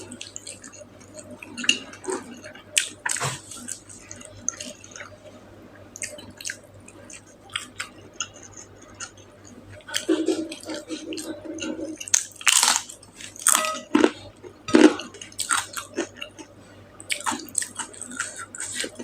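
Close-miked mouth eating sounds: chewing and biting with wet smacks and clicks and the odd crunch, irregular and busiest about two-thirds of the way through.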